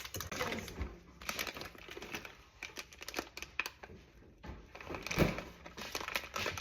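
Light, irregular clicks, knocks and rustles of hands and utensils working cookie dough with chocolate pieces in a bowl.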